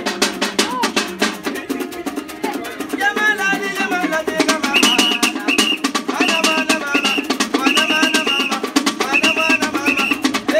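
Lively music driven by fast, steady hand drumming, with a high melodic line joining about three seconds in and repeating in short phrases.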